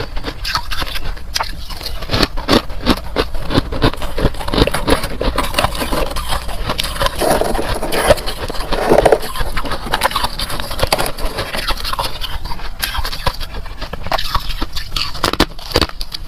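Freezer frost being bitten and chewed, close up: a dense, continuous run of crisp crunches and crackles with some scraping.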